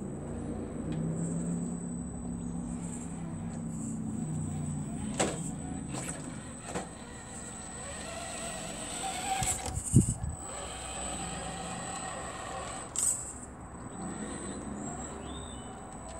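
Scale RC crawler truck's electric motor and gearbox whirring as it drives on asphalt, over a steady high whine. Several sharp clicks, and one loud thump about ten seconds in.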